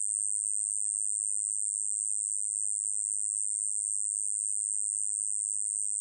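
Song of the 꼬마여치베짱이, a small coneheaded katydid: one steady, unbroken, high-pitched buzz.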